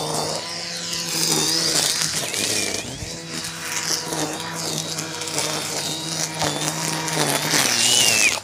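Battery-powered string trimmer running nearby with a steady motor hum that stops near the end, mixed with rushing wind noise on the phone's microphone as it is moved about.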